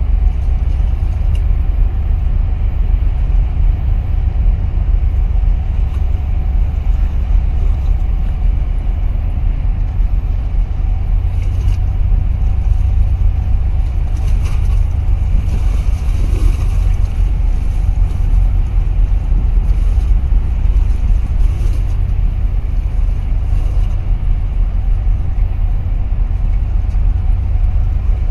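Steady low engine rumble of a boat under way, with a faint steady hum above it.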